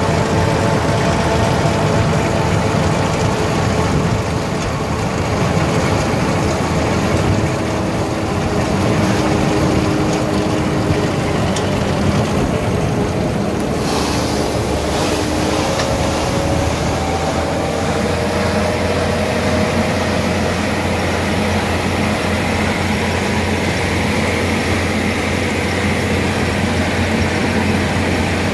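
Goweil baler-wrapper running steadily under power: a continuous machinery drone with faint whining tones that drift slightly in pitch, and a brief hiss about halfway through.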